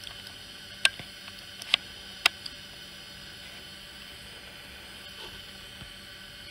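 Sharp taps of a fingertip on an iPad touchscreen, three loud clicks in quick succession in the first couple of seconds and a few lighter ones, over a steady faint hiss.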